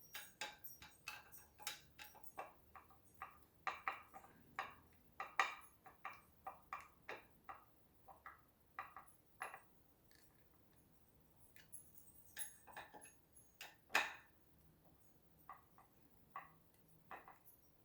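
Screws being tightened into a cabinet drawer pull by hand with a screwdriver: a long run of light, irregular clicks and ticks, a few a second, pausing briefly about ten seconds in, with one louder click around fourteen seconds.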